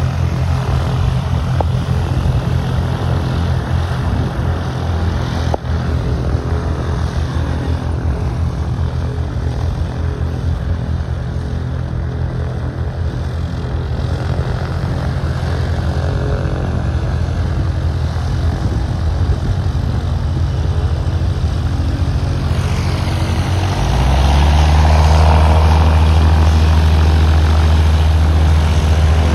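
Cessna 172S Skyhawk's four-cylinder piston engine and propeller running steadily as the plane moves on the ground. About 24 seconds in the sound gets louder, with a deeper, steadier drone.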